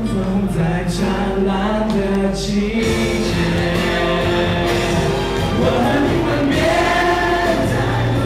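A mixed group of men and women singing a song together into microphones.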